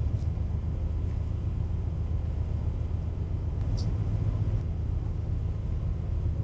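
Steady low drone of a moored ship's machinery running, its engine or generator humming at an even pitch. There is a brief faint high chirp about four seconds in.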